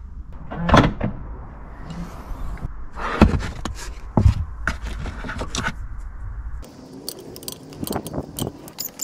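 Metal hand tools clinking and knocking as they are handled, with a few sharp knocks in the first half. Near the end comes a run of light, fairly even clicks.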